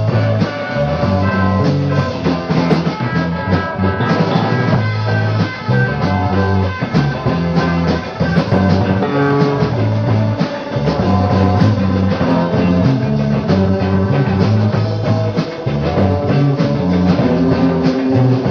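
Live rock band playing an instrumental passage: guitars over bass guitar and drum kit, at a steady beat.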